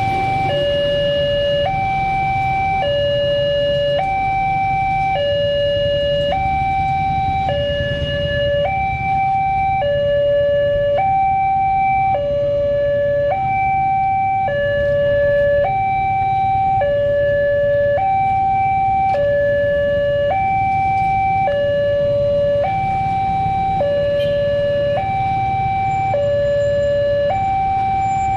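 Railway level-crossing warning alarm from the horn loudspeaker on the crossing post: a two-tone electronic alarm, a higher and a lower tone switching back and forth about once a second, sounding steadily while the barriers are down for an approaching train. A steady low rumble runs underneath.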